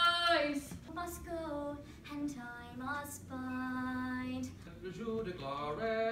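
A young female voice singing solo, in phrases of long held notes that slide between pitches.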